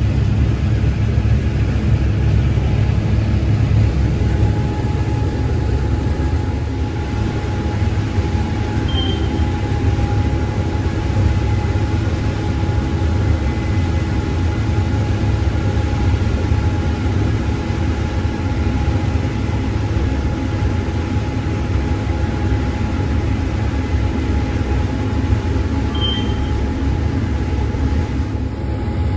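Tractor engine running steadily with a constant low hum. Two brief high chirps come about 9 and 26 seconds in.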